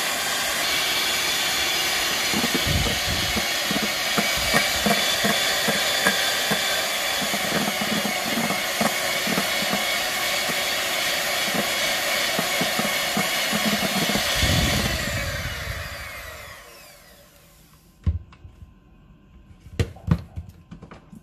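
Electric hand mixer whipping egg whites and sugar into stiff meringue in a stainless steel bowl: a steady motor whine, with the beaters knocking and scraping against the bowl, winding down with a falling pitch about fifteen seconds in. A few sharp knocks near the end.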